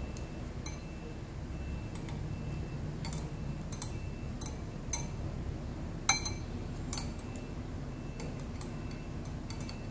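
Scattered light clinks and taps of a utensil against a bowl as cooked apple and onion pieces are lifted out, with one sharper clink about six seconds in, over a low steady hum.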